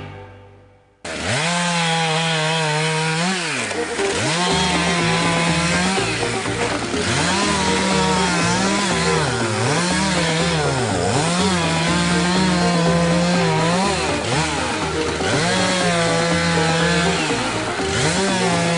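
Chainsaw cutting into river ice, starting abruptly about a second in and running at high revs; its pitch drops each time the bar bites into the ice and climbs back up as it frees, every one to two seconds.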